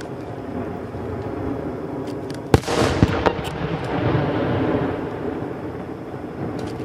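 Underwater fireworks bursting on a lake surface: a sharp bang about two and a half seconds in, another about half a second later and a smaller pop after it, over a steady low rumble of reports.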